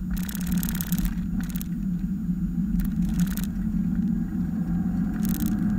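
Mazda Miata's four-cylinder engine running steadily, heard from inside the open cockpit, with short bursts of wind noise on the microphone several times.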